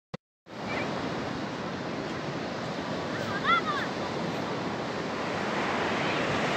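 Ocean surf breaking and washing up the beach, a steady rushing. About halfway through, a short high call rises and falls over it.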